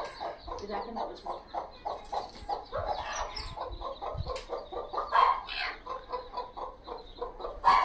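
Mother hen clucking to her chicks in short, quick repeats, several a second, with a few louder clucks partway through.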